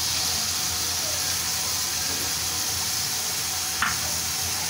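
Beaten egg, chicken, shrimp and vegetables sizzling in hot oil in a steel kadai: a steady frying hiss, with one light click near the end.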